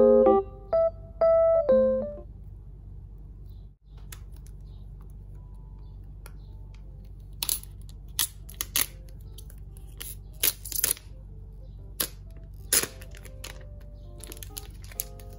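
A piano phrase ends in the first two seconds. Then clear plastic shrink-wrap is peeled off a phone box, giving a handful of sharp crinkles and crackles between about seven and thirteen seconds in, over a low steady hum and faint soft music.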